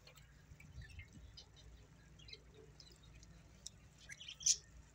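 Faint crackles and ticks from potato and carrot pieces cooking in masala and oil in a karahi over a wood fire. A spoon stirring and scraping in the pan makes a louder clatter a little after four seconds in.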